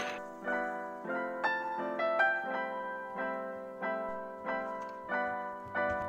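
Background piano music: a gentle line of notes and chords, struck about twice a second and left to ring.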